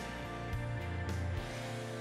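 Background music: sustained chords over a bass line with a few drum hits; the bass and drums drop out about a second and a half in, leaving the chords to fade.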